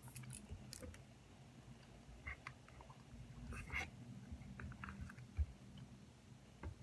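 Faint crinkles and small clicks of a foil drink pouch and its plastic straw being handled while the drink is opened, with one soft low bump a little past the middle.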